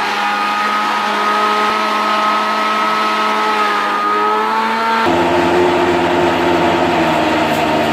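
Electric kitchen blender running, blending red bell peppers, scotch bonnet and onions, with a steady motor whine. About five seconds in, the whine drops to a lower pitch and holds there.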